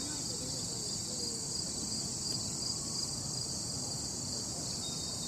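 Steady, high-pitched chorus of insects chirring in the surrounding forest, with a faint pulsing to it.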